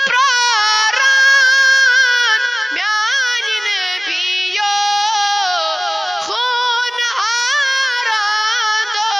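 A high voice singing a Kashmiri naat, a devotional song, with long held notes and quick ornamented turns between them.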